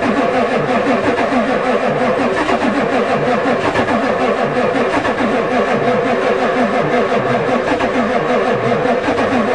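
A Ford diesel truck engine being cranked over by its starter, turning over in an even rhythm without catching. It is a cold start at about 4 °C that the engine does not fire on.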